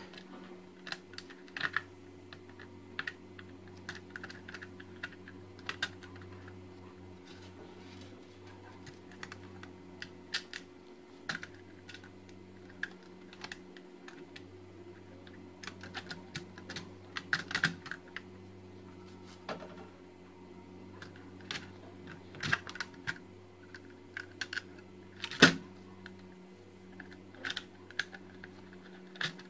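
Small screws being driven by hand with a screwdriver into the metal hard drive housing of an HP ProDesk 400 G3 Mini: irregular light clicks and ticks of the bit and screws on metal, the sharpest a single tap about 25 seconds in. A steady low hum runs underneath.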